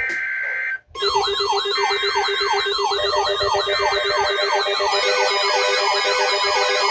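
Emergency Alert System flash flood warning tones: a short burst of electronic data tone, then about a second in a dense stack of electronic siren-like tones, several fast rising and falling sweeps over steady tones, with more high tones joining about five seconds in.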